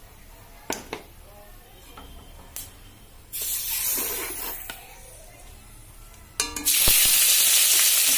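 Hot oil with cumin and bay leaves in a kadai, quiet but for a few light clicks, hisses briefly about three seconds in. Near the end wet onion paste goes into the oil and it breaks into a loud, steady sizzle.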